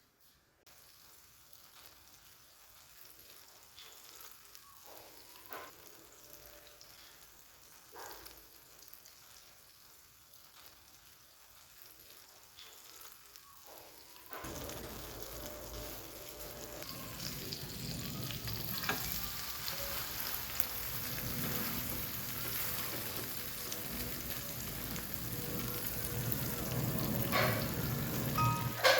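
Food frying in a pan, an even sizzle that is faint at first with a few sharp clicks, then grows much louder about halfway and keeps building.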